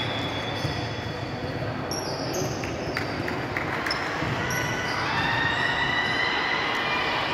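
Basketball bouncing on a sports-hall court, a few separate thuds, with short high squeaks of sneakers on the floor and a steady background of voices in a large hall.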